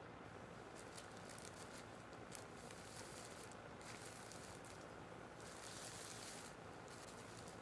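Faint crackling rustle of a plastic carrier bag snagged in a tree and flapping in the wind, loudest briefly about six seconds in, over a steady low hum.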